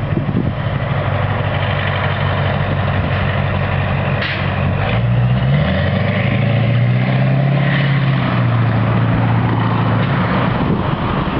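Tracked armoured vehicles driving past, engine running with a steady low drone that steps up in pitch about five and a half seconds in, over the rattle and rumble of tracks on the road.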